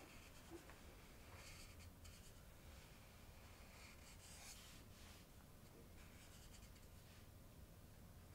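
Felt-tip marker drawn across flip-chart paper: faint scratchy strokes, several separate ones, as a letter is written.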